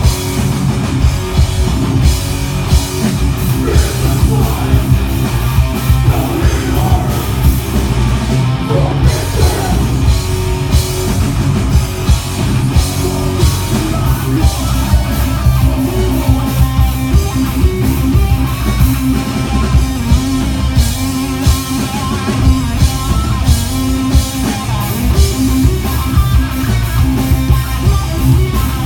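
Metal band playing loud and live, with electric guitars, bass and drum kit, picked up by a smartphone microphone.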